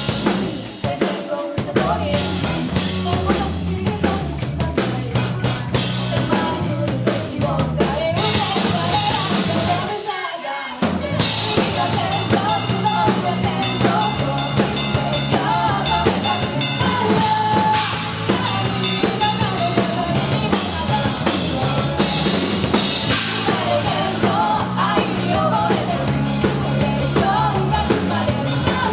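Loud rock band music with the drum kit to the fore, bass drum and snare driving, and no singing. About ten seconds in the band briefly drops out before coming back in full.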